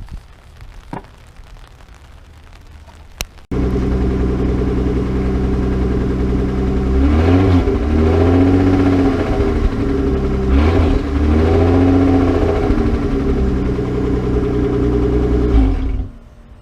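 Faint pattering and clicks, then about three seconds in a car engine cuts in loud, runs steadily and is revved up and back down twice before it cuts off near the end.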